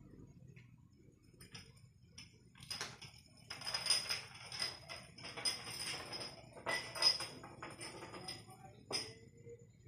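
Small glass rolling across a tiled floor: an uneven rolling rattle in stretches of about half a second to a second, with clicks and a faint high ringing from the glass, from about three seconds in until near the end.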